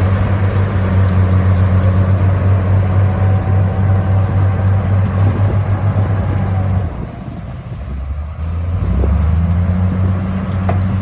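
Crawler bulldozer's diesel engine running steadily under load. About seven seconds in it drops in speed and level, then picks back up about two seconds later.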